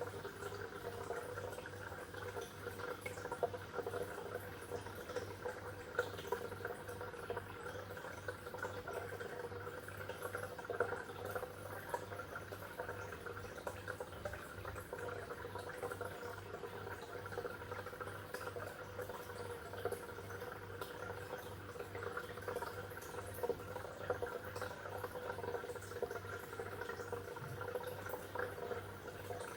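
Water bubbling and trickling steadily, with many small drips and splashes and a low steady hum underneath.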